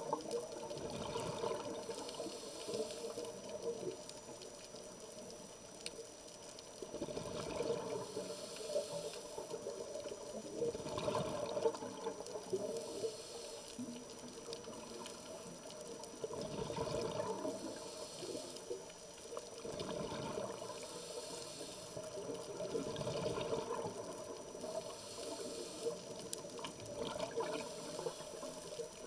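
Scuba diver breathing through a regulator, heard underwater: a hiss on each inhale and a rush of bubbles on each exhale, repeating in slow cycles a few seconds apart.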